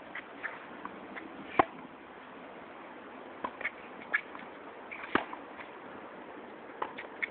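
Tennis ball struck by rackets and bouncing on a hard court during a baseline rally: sharp pops a few seconds apart, the loudest about a second and a half in and again about five seconds in, with fainter ones between.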